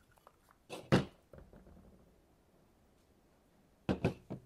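Plastic Power Wheels gearbox case and parts being handled and set down on a table: one sharp knock about a second in, then a quick cluster of three or four knocks near the end.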